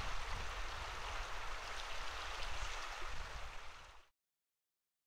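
A steady rushing noise with a deep low rumble and a few faint clicks. It fades quickly and cuts to silence about four seconds in.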